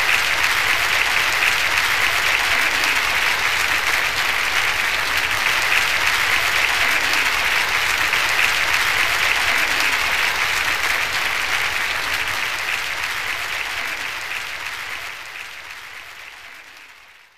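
Large audience applauding in a steady, sustained ovation, fading out near the end.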